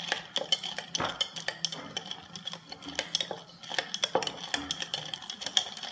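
A metal spoon stirring iced coffee in a tall glass, clinking rapidly and irregularly against the glass and the ice cubes.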